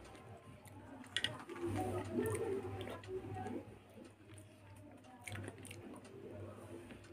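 Soft, wet squishing of khichuri being mashed and mixed by hand on a plate, with a few light clicks.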